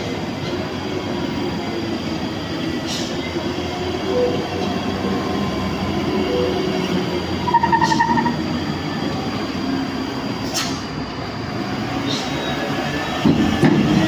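Diesel engines of heavy trucks and buses labouring up a steep mountain grade, a steady heavy rumble. A short higher pitched tone sounds about eight seconds in, and a louder surge comes near the end.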